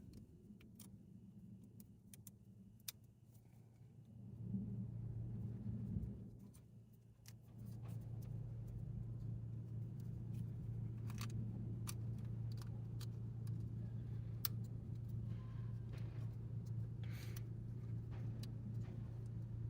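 Light plastic clicks and rustles of a wiring connector's protective cover being handled and fitted, over a steady low hum that sets in about four seconds in and holds from about eight seconds in.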